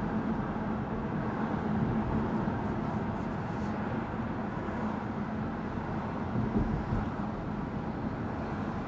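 A BMW car's cabin while driving slowly along a town street: a steady rumble of tyre and road noise with a low, even hum running under it.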